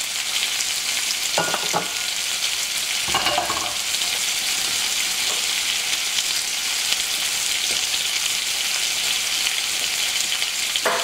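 Pork tail-end intestines frying in hot oil in a pot, a steady sizzle. They are being seared until firm before braising.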